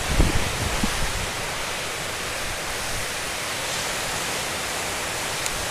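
Steady rush of nor'easter gale wind and storm surf, with a few low thumps of gusts hitting the microphone in the first second.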